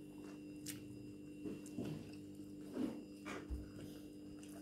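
Faint chewing and slurping of noodles, with a few short soft clicks, over a steady low hum.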